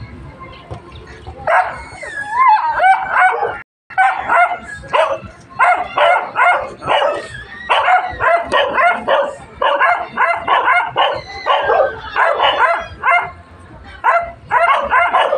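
Stray dogs barking and yelping in rapid, repeated bursts. The barking starts about a second and a half in, with a few whining yips at first, and keeps up densely after that.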